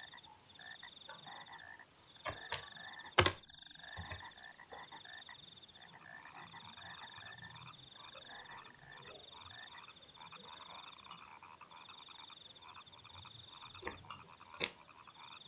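Faint high trilling animal calls in the background, repeating in stretches of a second or so, with a few sharp clicks, the loudest about three seconds in.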